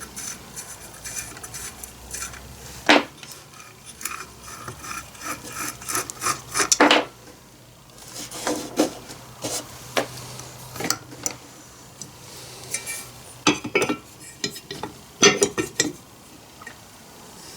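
Metal clinking and clanking from hand tools and small chainsaw parts being handled, with scraping between the knocks, as bolts on an old Stihl chainsaw are worked out. Sharp, loud knocks come about three seconds in, near seven seconds, and twice near the end.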